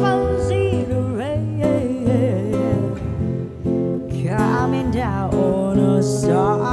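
A woman singing live into a microphone with acoustic guitar accompaniment, her voice in sliding, held phrases with short gaps between them.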